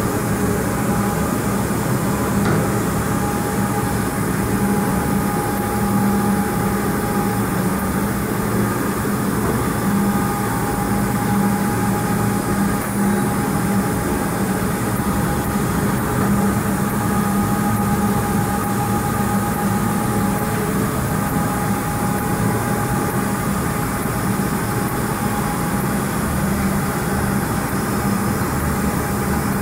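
Double-sided wide-belt sanding machine for wooden mouldings running steadily: a constant low hum with a fainter, higher whine over it.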